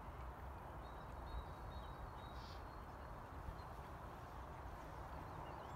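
Faint outdoor background: a steady low rumble and hiss with a few faint bird chirps, and a thin high whistle in the first half.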